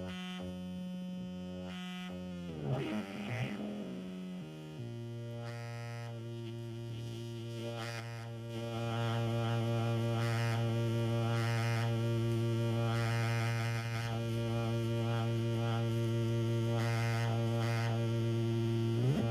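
MFOS Weird Sound Generator, a DIY analog synth built on a breadboard, droning on a steady buzzy low note. Near 3 seconds in it breaks into a warbling sweep, then settles on a lower drone that grows louder about 9 seconds in, with wobbling higher tones over it.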